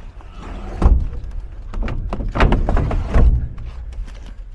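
Wooden Euro pallets being slid and shoved into a truck trailer's underslung pallet box: a heavy wooden knock about a second in, then a run of knocks and scrapes as the pallets are pushed into place.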